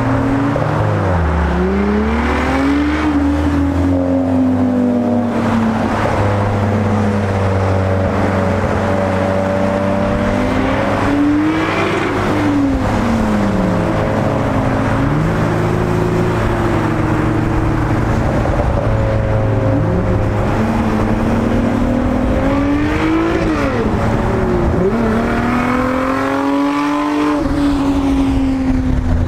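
Car engines on a freeway, their pitch rising under acceleration and falling off several times, over a steady road and wind rumble.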